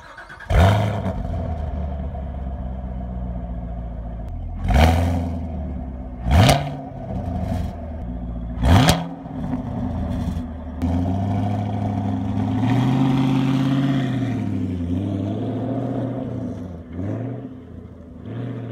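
Chevrolet Camaro SS 6.2-liter V8 through its quad-tip exhaust, flaring loudly about half a second in and then idling, with three short sharp revs. From about the middle it runs at a higher steady note, its pitch rising and falling near the end as the car pulls away.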